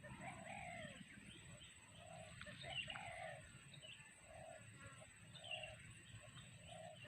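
Faint pigeon cooing: short low coos repeating about once a second, with faint higher bird chirps among them.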